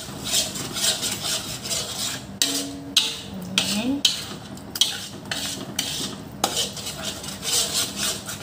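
Metal spatula scraping and stirring crumbled tofu around a wide metal wok. The strokes come repeatedly and unevenly, with a few sharp clicks of metal on metal.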